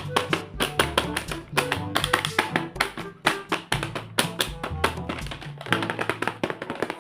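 Background music: a plucked-string tune over a bass line, driven by a dense run of sharp percussive clicks.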